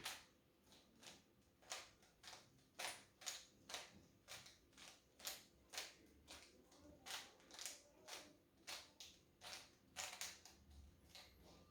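Rubik's cube being scrambled by hand, its plastic layers clacking in quick, irregular turns, about two or three a second.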